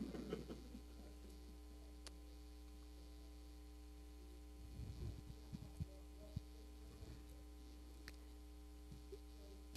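Near silence: room tone with a steady electrical mains hum, broken by a few faint clicks and soft knocks.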